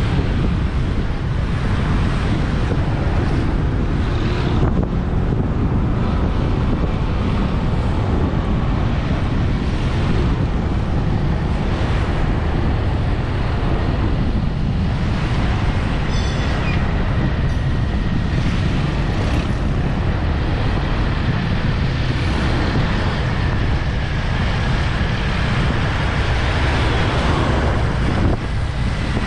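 Steady wind buffeting on an action camera's microphone as it moves through street traffic, over road noise and the engines of passing motorbikes and cars.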